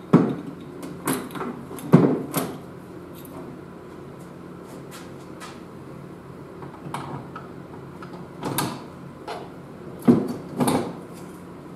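Irregular clunks and knocks of an aluminium NP231 transfer case housing being handled, tilted and set down on a workbench during reassembly, bunched near the start and again near the end, with a steady low hum underneath.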